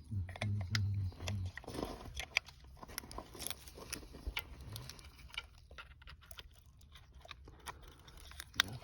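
Irregular small clicks, taps and scrapes of hands cleaning and handling a sliding gate motor's cover.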